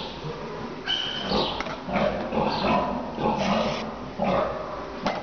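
Piglet grunting in short, irregular grunts, about two a second, while being castrated, without squealing.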